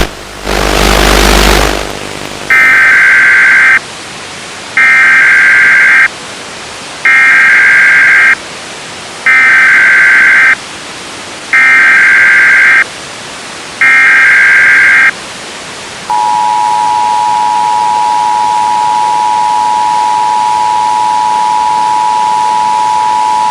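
Emergency Broadcast System-style alert tones over constant broadcast hiss: a short burst of static, then six evenly spaced electronic beeps about two seconds apart, then the steady two-tone attention signal.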